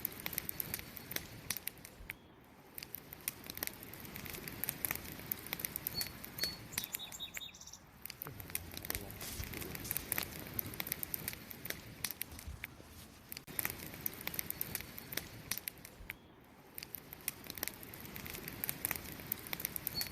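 Fire crackling, with dense, irregular pops and snaps over a steady hiss; the crackle eases off briefly twice.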